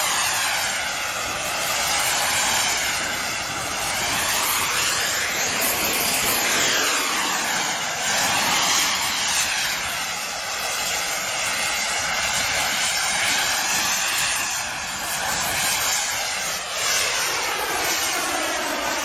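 Fighter jet engines roaring as jets fly low overhead, the pitch of the roar sweeping up and down again and again as they pass.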